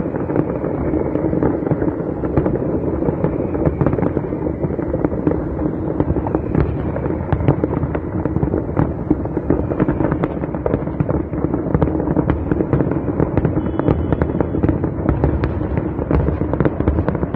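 Fireworks display in full barrage: aerial shells bursting and crackling many times a second without a break.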